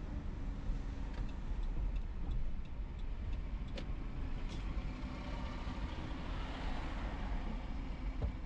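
Car driving on a city street, heard from inside the cabin: a steady low engine and road rumble. A few light clicks come over the first half, and a swell of hiss builds about two-thirds of the way through.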